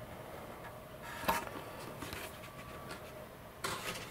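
Faint handling noise of fingers working on a carbon glider fuselage: one sharp click about a second in and a brief scuff near the end.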